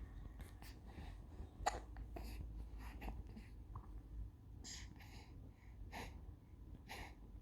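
Two-month-old baby hiccuping: a series of short, sharp hiccups roughly a second apart, the sharpest about a second and a half in.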